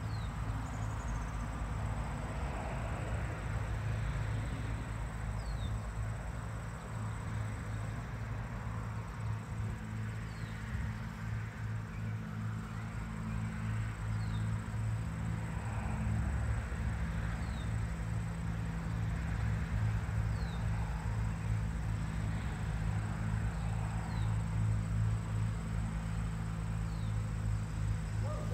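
Honeybees buzzing around nucleus hives: a steady low hum that wavers as bees fly close. A short, high, falling chirp comes every three to four seconds.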